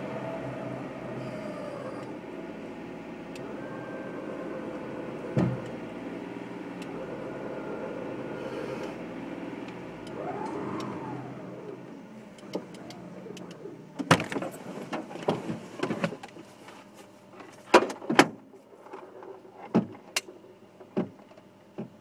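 Electric winch on a Jeep Wrangler running, its motor whine drifting in pitch as it pulls against the tree, fading out about halfway through. A series of sharp knocks and clicks follows near the end.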